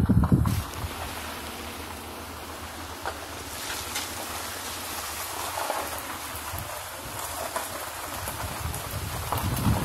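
Ford SUV rolling slowly along a gravel road: a steady low hum of engine and tyres under a rushing noise of gravel and air, picked up with the camera held out of the open window.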